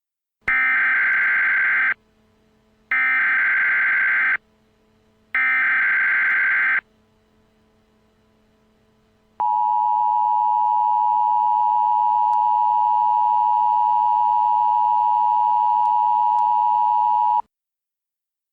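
Emergency Alert System tones: three identical digital header bursts, each about a second and a half long with short gaps between, then after a pause the steady two-tone EAS attention signal for about eight seconds, cutting off abruptly. The sequence announces an emergency alert voice message.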